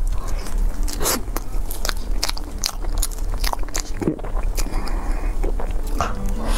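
Close-miked bites and chewing of a thick layered cake, a run of sharp crunches and crackles.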